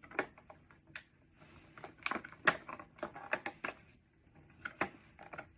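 Irregular clicks, taps and light rustling of items being handled and set down by hand, with a sharper knock about two and a half seconds in.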